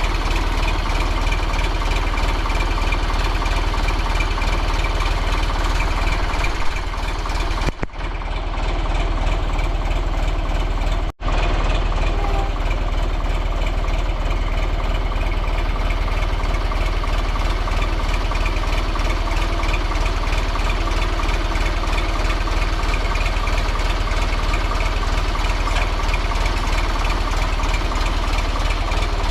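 Engine running steadily, with a brief dip about 8 seconds in and a momentary dropout around 11 seconds.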